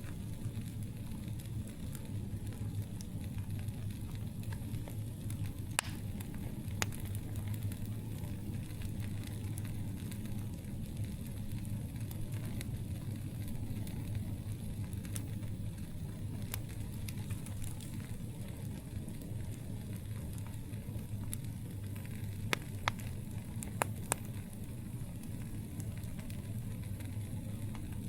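Campfire burning with a soft steady crackle over a low rumble, broken by a few sharp pops: one about six seconds in, another a second later, and a cluster of three or four near the end.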